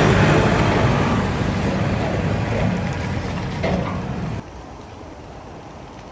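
A vehicle's engine running as it drives through a flooded ford, with rushing, splashing water, slowly fading. About four seconds in the sound cuts off abruptly to a quieter steady rush of water and wind.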